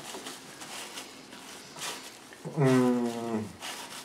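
A man's wordless, drawn-out vocal sound, about a second long and falling in pitch, about two and a half seconds in, over faint clicking and rustling from a mouthful of paper being chewed.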